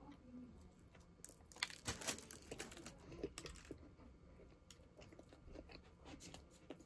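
A person chewing and biting into a sandwich close to the microphone, with a cluster of faint crunches and mouth smacks from about one and a half to three and a half seconds in.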